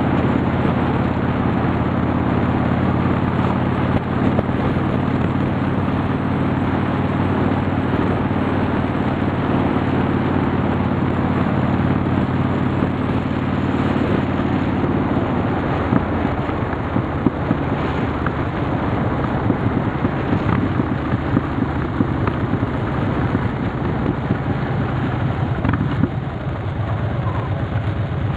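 Harley-Davidson Softail's V-twin engine running at a steady cruise under wind and road noise, heard from a camera on the moving bike. About halfway through the even engine note breaks up as the rider eases off, and near the end the sound drops a little quieter as the bike slows for a junction.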